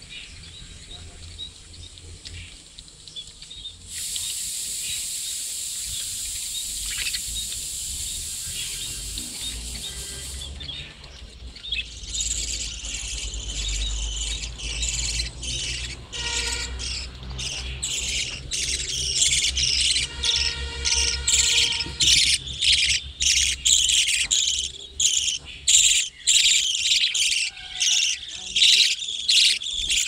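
A flock of budgerigars chattering, with rapid overlapping chirps that grow denser and louder from about twelve seconds in. Before that, a steady hiss starts suddenly about four seconds in and stops about six seconds later, over a low rumble.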